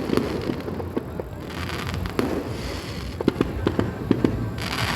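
Fireworks display: a quick, irregular run of pops and bangs, with a burst of hissing crackle near the end.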